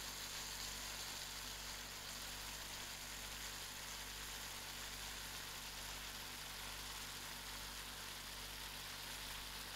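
Faint, steady sizzle of a pan of cabbage and baked beans curry simmering on the stove.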